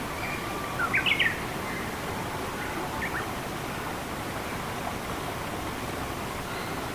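Steady rushing of flowing water, with a bird giving a quick run of rising chirps about a second in and a couple of fainter chirps near three seconds.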